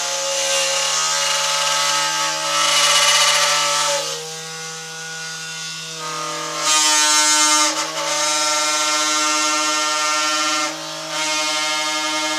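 Drilling machine running with a steady motor whine while it bores fastener holes; the sound gets louder and brighter twice, a couple of seconds in and again around the middle, as the bit cuts.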